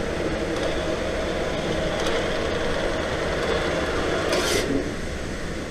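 Motorized target carrier running along its overhead track with a steady whirring rub, bringing the paper target back up the lane. A brief hiss comes about four seconds in, and the running sound eases off near the end.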